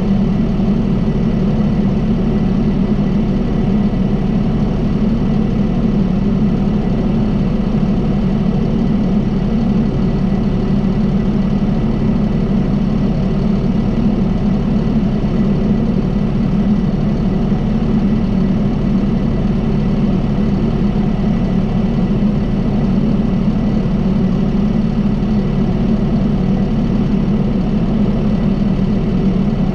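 John Deere 5075E tractor's diesel engine running at a steady speed.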